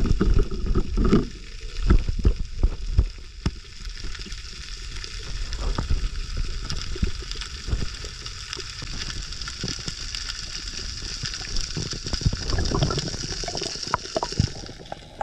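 Underwater ambience recorded through an action camera's housing: a steady crackling hiss. Low thumps and knocks come in the first few seconds and again about twelve seconds in.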